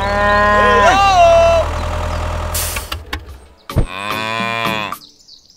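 A cow mooing twice: one long moo with a bending pitch at the start and a second one about four seconds in. A low steady hum runs under the first moo and stops about three seconds in.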